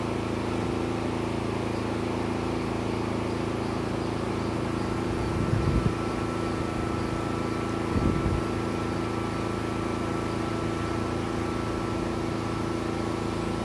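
An engine running steadily at idle, a constant hum with a few steady pitches, with a brief low rumble twice, about five and a half seconds and eight seconds in.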